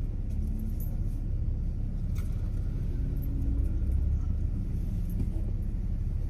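Low, steady rumble of a car idling, heard from inside the cabin, with a few faint clicks.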